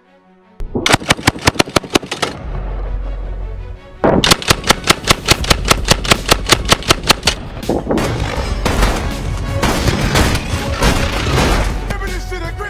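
AA-12 12-gauge combat shotgun firing fully automatic: a burst of rapid, evenly spaced shots starting about half a second in, then a longer burst about four seconds in at about six shots a second. In the last few seconds the shots run together into a denser clatter of gunfire.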